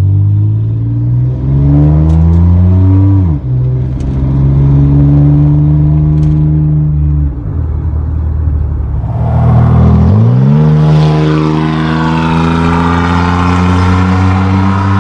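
A 1997 Chevrolet Camaro's 3.8-litre V6 exhausting through a Cherry Bomb performance muffler while accelerating hard. The exhaust note climbs in pitch and drops back at each gear change, about 3 and 7 seconds in, then dips near 10 seconds and climbs again.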